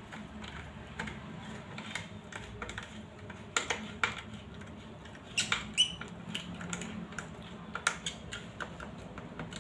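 Irregular small clicks and scrapes of a screwdriver-tipped voltage tester working a terminal screw on a plastic-cased electricity meter while a wire is fitted, with a few sharper clicks and a brief squeak in the middle.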